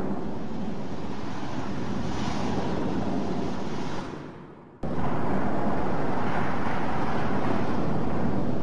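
Steady rush of sea surf churning around a rock, edited and exaggerated. It fades away about four seconds in, then cuts back in abruptly and louder a little under a second later.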